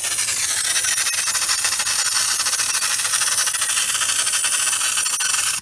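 Compressed-air applicator gun spraying U-Pol Gravitex stone chip underbody coating: a loud, steady hiss of air and sprayed coating that stops abruptly at the end as the trigger is released.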